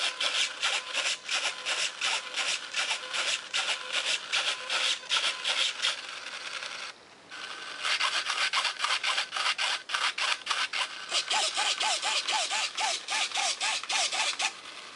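Micro RC servos driving the control surfaces rapidly back and forth during a control surface check: a fast rasping buzz of several strokes a second. It pauses briefly about seven seconds in, and in the later part each stroke carries a faint short whine.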